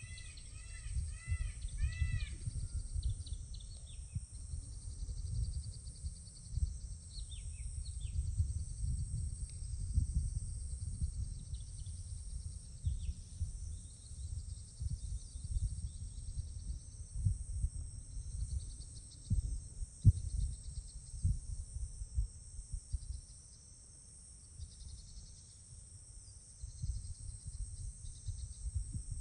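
Outdoor ambience: birds chirping, with a quick series of repeated arched whistled notes in the first couple of seconds and scattered short high chirps later. A steady high buzz runs underneath, over an uneven low rumble with one sharp knock about twenty seconds in.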